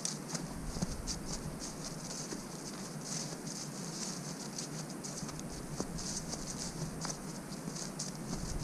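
Grasshoppers stridulating: a dense, rapid stream of high, raspy chirps, many per second and uneven in rhythm.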